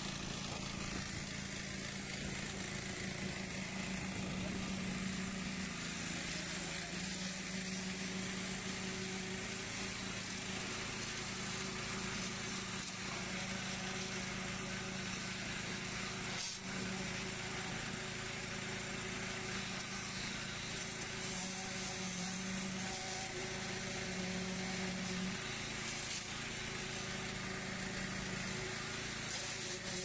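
Motor of a concrete needle vibrator running steadily, its poker worked into freshly poured slab concrete.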